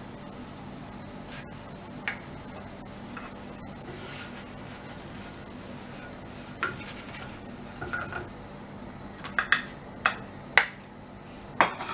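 Wooden spatula scraping and knocking against a griddle and a ceramic plate as a cooked paratha is slid off onto the plate: scattered clicks, sparse at first and coming more often in the second half.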